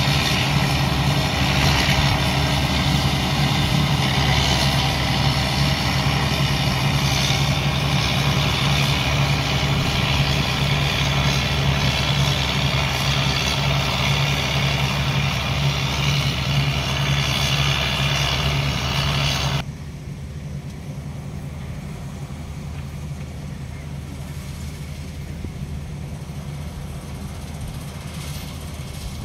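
CLAAS Crop Tiger combine harvester running steadily while it cuts soybeans: a constant engine hum with machinery noise over it. About two-thirds of the way through, the sound drops suddenly to a quieter level.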